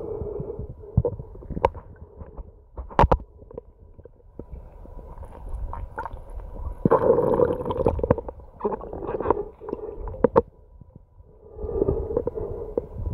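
Muffled underwater sound picked up by a submerged camera: swelling, gurgling water noise with several sharp clicks and knocks.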